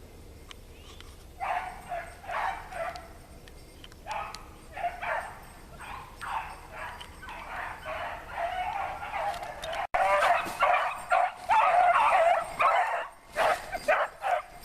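Pack of rabbit hounds baying while running a rabbit. At first there are scattered calls, then after about ten seconds a loud, steady chorus of several hounds as the pack comes close.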